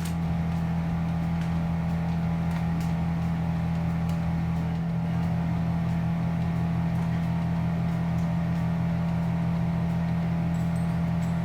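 Steady low hum of a running kitchen appliance, unchanging in pitch and level.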